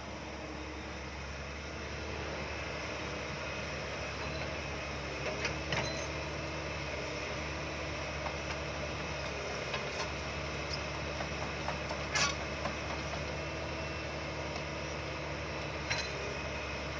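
Komatsu PC100 hydraulic excavator's diesel engine running steadily while it works, with a few sharp metallic clanks scattered through, the loudest about twelve seconds in.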